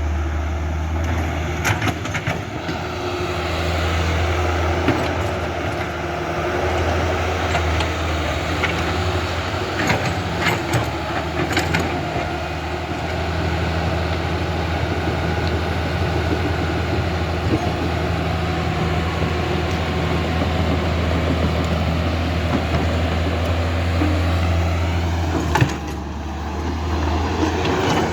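Radio-controlled excavator and bulldozer running: a steady motor hum and drone, with a few sharp clicks and scrapes as soil is worked.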